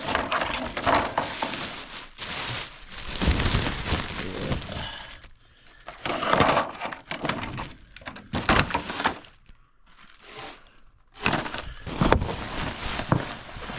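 Irregular clattering, knocking and crinkling as tools and materials are handled, in bursts with two short lulls.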